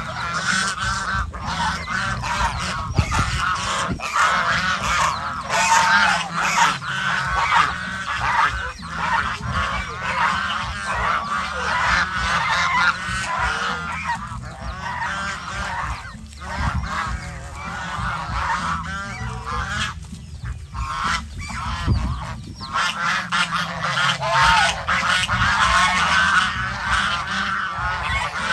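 A flock of domestic geese honking continuously, many calls overlapping, with ducks mixed in; the calling eases briefly about two-thirds of the way through.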